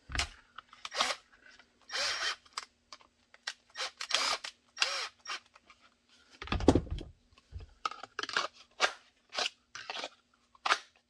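Glock 48 pistol with a TLR-6 light being pushed into and drawn from a Kydex holster to check its retention: a run of short hard plastic clicks and scrapes, with a heavier thump about six and a half seconds in.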